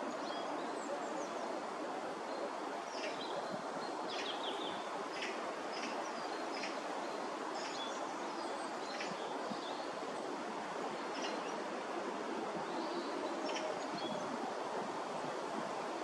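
Outdoor ambience: a steady background rush with small birds chirping in scattered short, high notes throughout.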